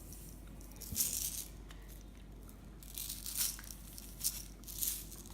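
Sprinkles being shaken from a container onto iced biscuits: several short rattling shakes, one about a second in and a cluster of them in the last couple of seconds.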